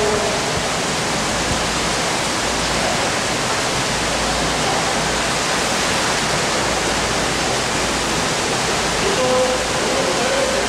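Steady rushing and splashing of swimming-pool water, an even hiss that holds at the same level throughout.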